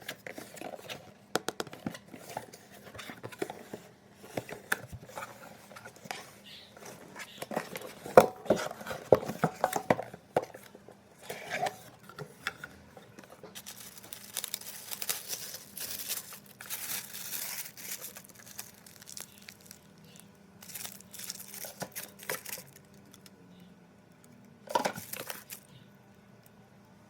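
Packaging being handled and unwrapped: crinkling and tearing of wrap, with many light clicks and knocks at first, then longer rustling spells and one louder rustle near the end.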